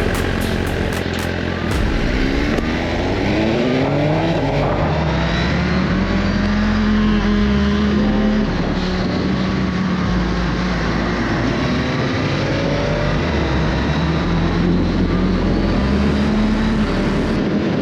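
Suzuki GSX-R1000R's inline-four engine under way, its pitch rising as it accelerates about two seconds in, then holding steady at cruising revs and rising again briefly later.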